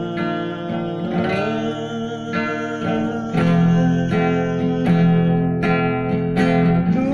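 Acoustic guitar strummed in a steady rhythm, chords ringing, with a man's voice trailing off a held sung note near the start; the strums get louder about halfway through.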